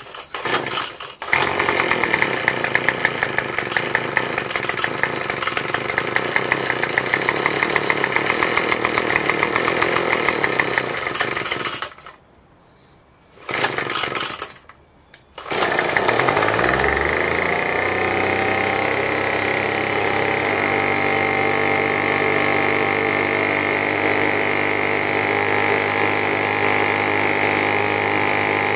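Craftsman Pro backpack leaf blower's small gas engine on a cold start. It catches and runs fast and uneven for about ten seconds, then dies. It fires again briefly and dies a second time. It then starts for good, its speed falling over a few seconds to a steady idle.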